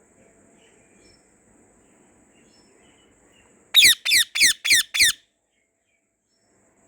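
White Indian ringneck parrot giving a quick run of five loud, harsh calls, about four a second, each sliding down in pitch, a little past halfway through.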